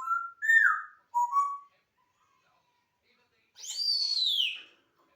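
African grey parrot whistling: a quick run of short whistled notes in the first second and a half, then after a pause a louder, higher whistle that glides down in pitch.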